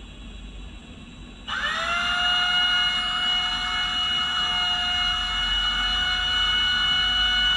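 Cordless drill starting about a second and a half in, its whine rising quickly to a steady pitch and holding there as it bores into the thick, hard corner of a solar panel's frame.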